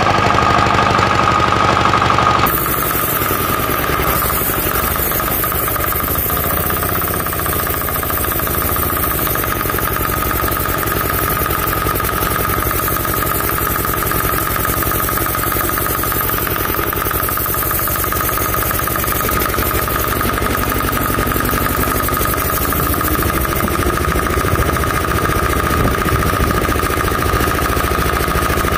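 186 FAE single-cylinder air-cooled diesel engine on a go-kart running steadily with a fast, knocking diesel beat. The sound changes abruptly about two seconds in.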